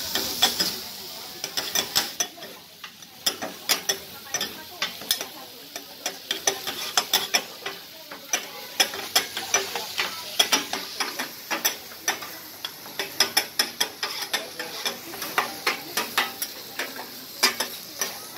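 Two steel spatulas clacking and scraping on a steel teppanyaki griddle, several irregular clacks a second as they chop and turn meat, over the steady sizzle of the meat frying.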